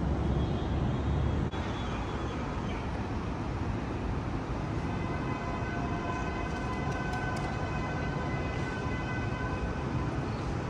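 Steady outdoor city background noise. From about four seconds in until near the end, a steady whine of several held tones sits on top of it. The sound changes abruptly about a second and a half in.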